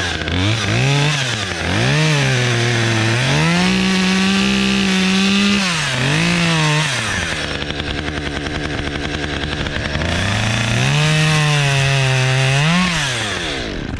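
Chainsaw cutting a piece off a tree limb. The engine revs up and drops in pitch several times as it works through the wood, runs lower and rougher for a few seconds in the middle, then stops near the end.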